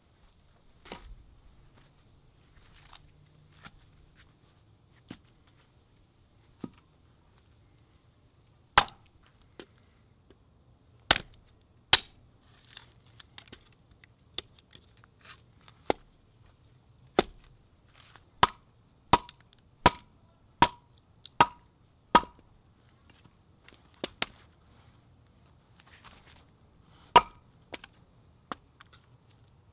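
Hatchet splitting firewood into kindling on a chopping stump: a series of sharp chops, a few faint knocks at first, then louder strokes with a quick run of about one every two-thirds of a second in the middle. Some of the strokes carry a brief ring.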